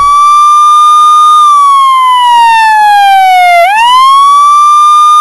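A siren wails on one high tone, slides slowly down for about two seconds, then sweeps quickly back up and holds steady.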